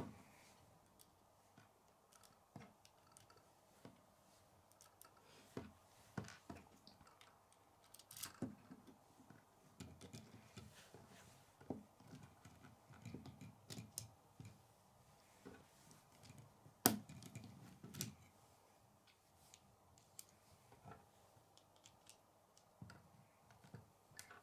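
Faint, scattered clicks and rattles of plastic K'nex pieces being handled and snapped together as wheels are fitted onto an axle, with a sharper click about two-thirds of the way through.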